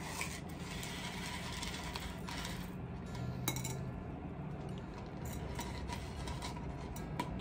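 Small white pebbles clicking and clinking as they are poured from a plastic scoop onto potting soil, scattered light ticks with a few sharper clicks.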